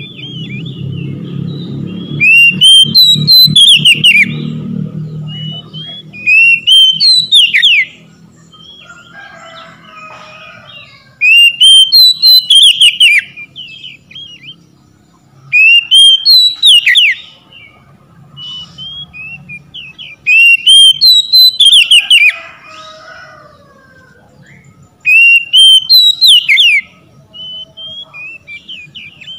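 Oriental magpie-robin (kacer) singing loudly in repeated whistled phrases. Each phrase is a quick run of rising, slurred notes lasting about two seconds, coming about every four to five seconds, with softer notes in between. A low rumble lies under the first few seconds.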